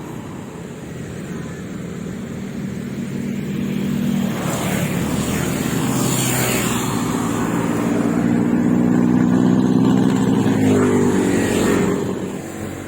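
Road traffic passing on a bridge: a motor vehicle's engine grows steadily louder, passes close with a shift in pitch, and fades near the end.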